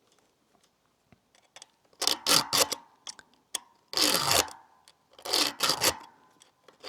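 Round file rasping across the cutter teeth of a chainsaw chain by hand, starting about two seconds in as three short bursts of strokes about a second and a half apart.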